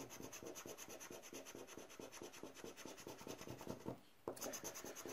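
Wooden scraper scratching the latex coating off a paper lottery scratch card in faint, rapid back-and-forth strokes, with a short pause about four seconds in.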